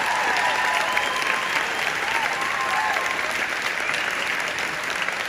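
Audience applauding, many hands clapping at once, with a few voices calling out over it; the applause eases off slightly toward the end.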